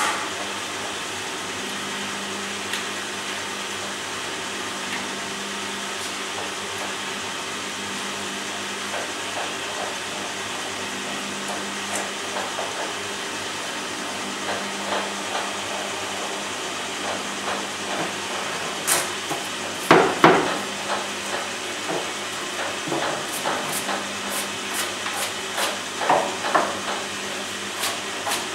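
Wooden honeycomb frames being handled, knocking and clicking against wood, sparse at first and busier in the second half, with two loud knocks about two-thirds of the way in. A steady machine hum runs underneath.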